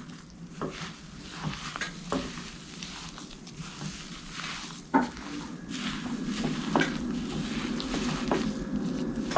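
Sticky dough of almond flour, sugar and whipped egg whites being kneaded by hand in a bowl: an uneven wet mixing noise with scattered light knocks, a sharper one about halfway through, and the mixing growing busier after it.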